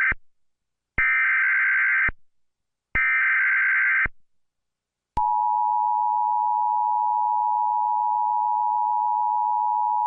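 Emergency Alert System header tones: the SAME data bursts, harsh warbling digital screeches of about a second each repeating at two-second intervals (the end of the first, then two full ones), followed about five seconds in by the steady two-tone EAS attention signal that precedes the alert message.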